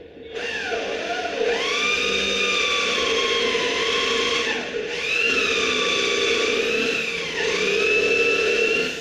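Electric drill boring or driving into a wooden frame in three long runs, its motor whine dipping and rising in pitch as it loads up. The drill stops near the end.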